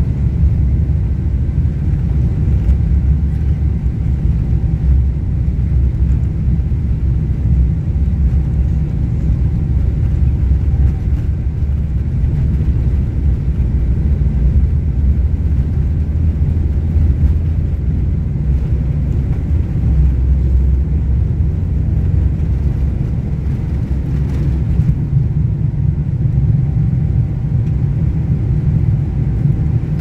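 Airliner cabin noise as the plane rolls along a runway: a steady low rumble of engines and rolling, with a few faint steady whining tones above it.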